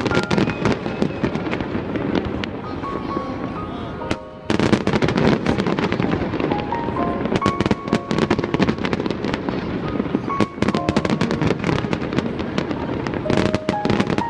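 Dense bangs and crackling from a large fireworks display, over music with steady held notes. The bangs pause briefly about four seconds in, then resume.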